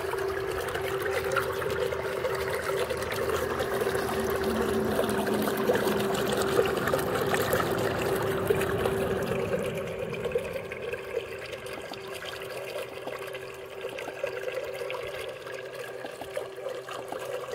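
Small solar-powered electric water pump running submerged in a bucket, churning and splashing the water with a steady hum. The sound drops a little about ten seconds in.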